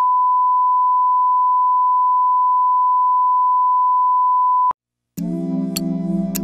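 Colour-bar test tone: one steady, unwavering beep that cuts off suddenly about four and a half seconds in. After a half-second silence, music with a regular beat begins.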